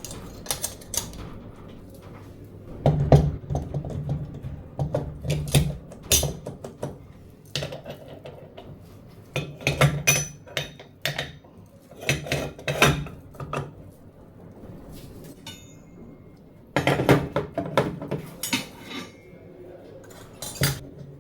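Metal kitchenware clattering and scraping as it is handled and scrubbed, in several bursts of a second or two with quieter gaps between.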